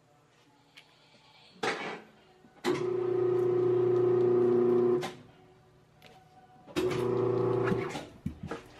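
Tire changer's turntable motor running in spurts as the mounting head works the bead of a Toyo R888R 295/30R18 tire onto the wheel rim. There is a brief burst, then a steady hum for about two seconds, then another for about a second.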